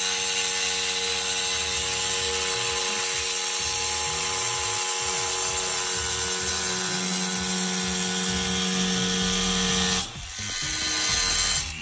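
Angle grinder cutting a curved line into a sandstone flag, its motor whine steady under the grinding noise of the blade in the stone. About ten seconds in, the whine drops away and a shorter, rougher stretch of grinding rises and then stops near the end.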